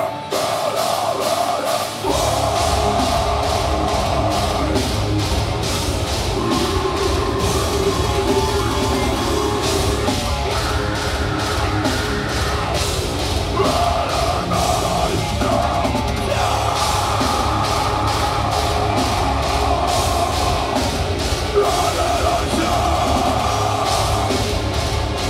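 Deathcore band playing live: distorted guitars with fast, pounding drums, the bass and kick drums coming in hard about two seconds in.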